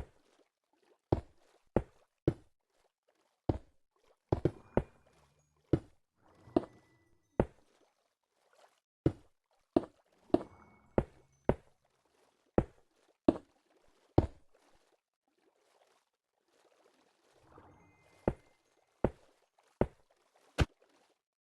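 A series of sharp taps, about one or two a second at uneven spacing, pausing briefly about two-thirds of the way through.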